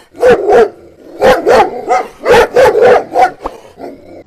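A dog barking: short barks mostly in quick pairs, repeating about once a second.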